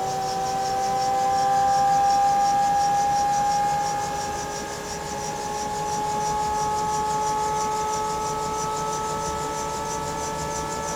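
Bell 212 helicopter's twin turboshaft engines during start-up, heard from inside the cabin: a whine of several tones that rises slowly in pitch as the turbines spool up, with a fast, even pulsing hiss above it.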